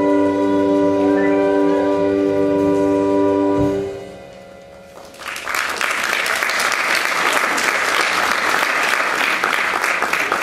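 A musical number ends on a held final chord, which stops about four seconds in. After a short pause, a theatre audience breaks into steady applause.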